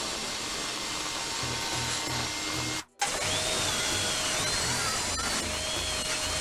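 Power tool running while cutting or working wood, under background music with a steady beat. The sound breaks off for a moment about three seconds in.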